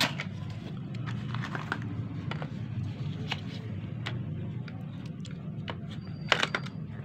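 Scattered light plastic clicks and taps from handling an HP 80A toner cartridge's drum section with its replacement OPC drum, with a louder cluster of clicks about six seconds in. A steady low hum runs underneath.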